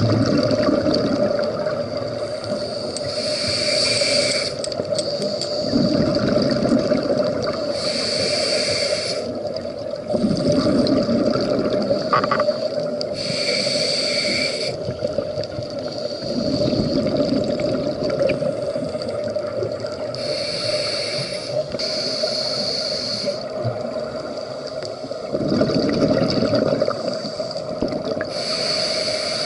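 A scuba diver breathing through a regulator underwater: a hissing inhale, then a rumbling rush of exhaled bubbles, repeating about every five to six seconds over a steady low hum.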